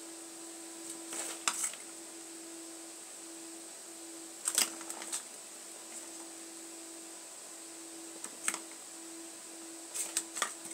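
Plastic ball clattering in a circular plastic track toy as a cat bats at it: four short bursts of clicks and knocks, over a faint steady hum.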